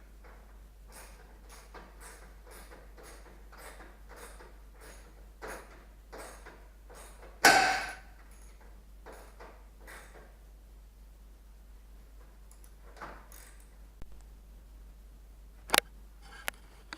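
Hand work on the truck's front-end plastic trim and grille fasteners: a run of light clicks and rattles, one loud knock about seven seconds in, and a sharp snap near the end as parts are pressed into place.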